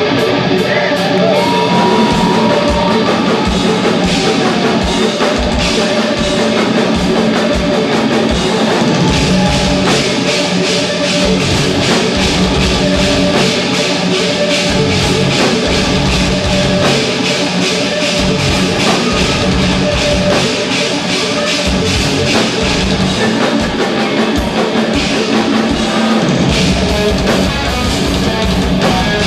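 Live instrumental progressive metal played loud: distorted eight-string electric guitars over a drum kit with fast, tightly repeated drum hits.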